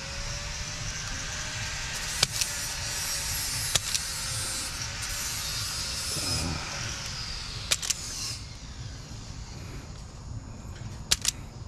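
Sharp snaps of a hand wire stripper working on small-gauge wire, coming in pairs about two, four, eight and eleven seconds in. Beneath them a steady background rush fades away about eight seconds in.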